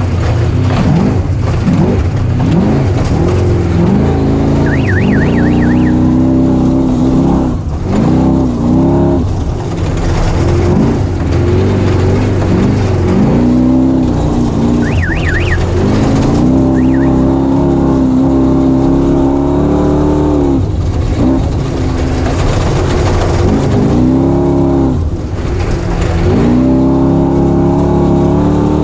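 Dirt bike engine being ridden hard, its revs climbing and dropping again and again as the throttle opens and closes, cutting back sharply several times.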